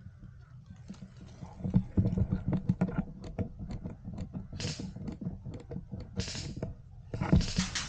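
Irregular clicks and knocks of an airsoft rifle being handled, carried through its gun-mounted camera, with short rustles of leafy undergrowth as the player gets down low. The rustles come three times, the longest just before the end.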